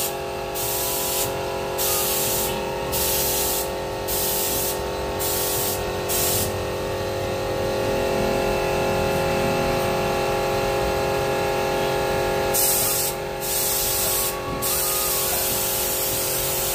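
Compressed-air paint spray gun spraying paint onto a clay idol: hissing in short pulses at first, then a long unbroken spray, short pulses again, and steady spraying near the end. A steady hum runs underneath.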